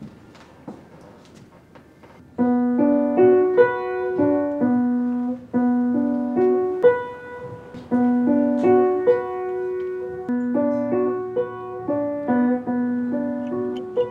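Piano played slowly, a melody of single sustained notes, starting about two seconds in after a few faint clicks.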